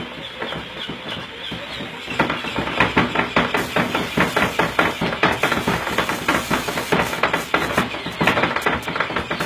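Rapid, relentless pats or slaps, several a second, starting about two seconds in: a baby-burping contraption's arms patting at the back.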